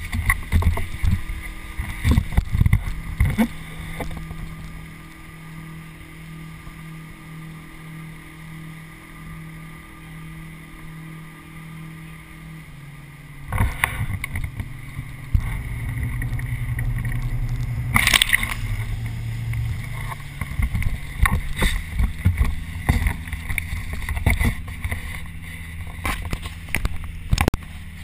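Sea water splashing and knocking against a waterproof camera housing held at the surface beside a boat, over the steady low hum of the boat's engine. A calmer stretch early on gives way about halfway to louder, more frequent splashes and knocks.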